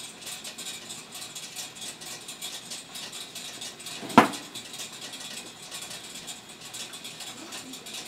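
Korean rice-popping machine (ppongtugi) running with a steady crackling hiss, and one sharp knock a little over four seconds in.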